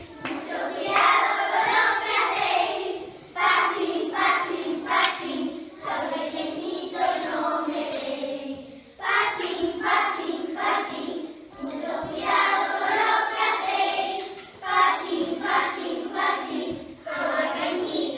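A group of young children singing a song together in unison, in long phrases with short breaks about three, nine and fifteen seconds in.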